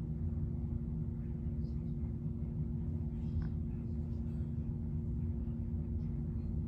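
Steady low electrical or mechanical hum with a constant rumble, with a few faint light scratches or rustles in the first half.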